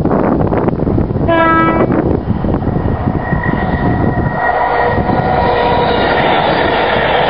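CrossCountry Voyager diesel multiple unit approaching and passing close at speed. It gives one short horn note about a second and a half in. From about three seconds in, the loud rush of the passing train carries several steady whining tones from its underfloor diesel engines and drive.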